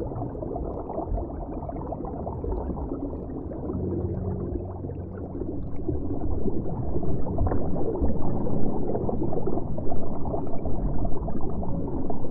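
Muffled underwater bubbling and rushing water, as heard from below the surface, growing louder from about six seconds in. A brief low hum sits under it about four seconds in.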